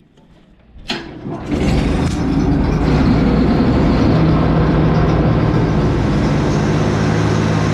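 Old tractor engine, choked, starting on a battery over 20 years old: it turns over briefly about a second in, catches, and settles into steady running.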